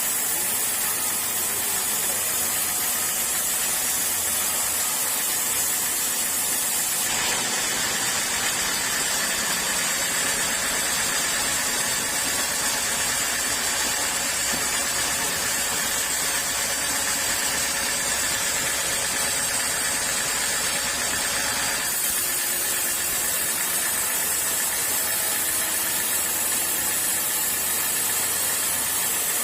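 Sawmill saw running with a steady machine noise and low hum. About seven seconds in the sound turns abruptly brighter and fuller, and about twenty-two seconds in it drops back.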